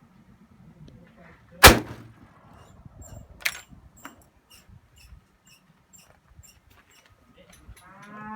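A single shot from a Martini-Henry .577/.450 black-powder rifle, sharp and loud, about a second and a half in, followed by two smaller sharp clicks. Near the end a cow starts to moo.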